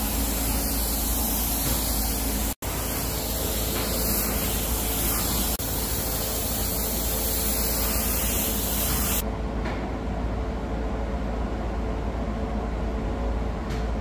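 Gravity-feed paint spray gun hissing steadily as it sprays Cerakote coating, over a steady low rumble. About nine seconds in the hiss stops and only the lower rumble goes on.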